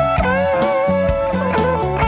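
Background music: a guitar melody with held notes that slide and bend, over a steady drum beat.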